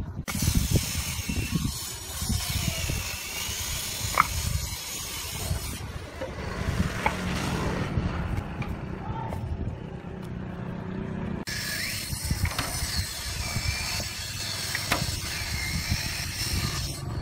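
A few sharp knocks of concrete pavers being set down on sand, over a steady outdoor rumble and hiss.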